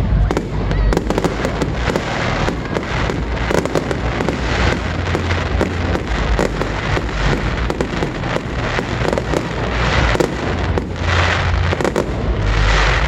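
Aerial fireworks going off in quick succession: a dense run of bangs and crackling, with deep booms underneath. Bursts of crackle swell around ten and twelve seconds in.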